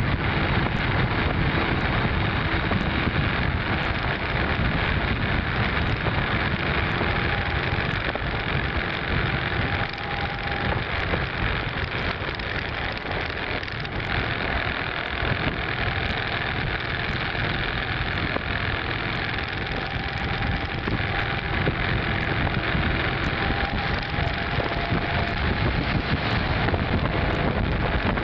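V-twin cruiser motorcycle running steadily at road speed, its engine mixed with a constant rush of wind on the microphone.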